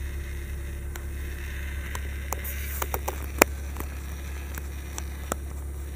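Rear centre armrest of a car being folded up and handled: a run of sharp plastic clicks and knocks, the loudest about three and a half seconds in, over a steady low hum.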